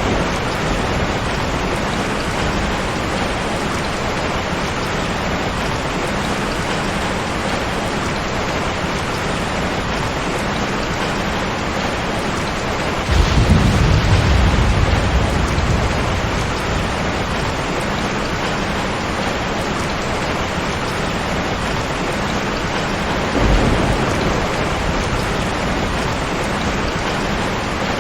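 Steady rain with two rumbles of thunder: a longer, louder roll about halfway through and a shorter one later on.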